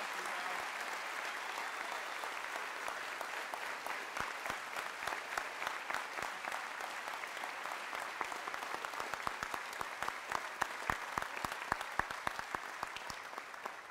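Audience applauding. Individual sharp claps stand out more in the second half.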